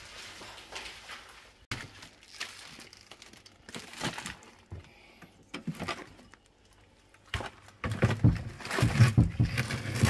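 Vacuum-sealed packs of beef being shuffled and pushed into a freezer: irregular plastic rustles and knocks, with heavier thumps in the last couple of seconds.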